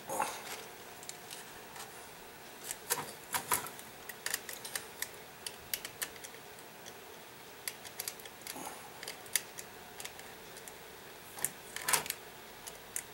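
Brass grandfather clock movement being handled during reassembly: scattered light metallic clicks and taps of its parts and a small hand tool. The clicks come in louder clusters about three seconds in and again near the end.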